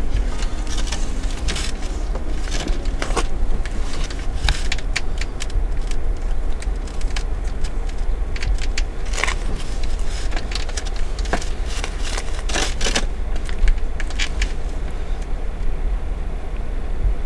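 Handling noise on a hand-held camera: a steady low rumble with many scattered clicks and crackles.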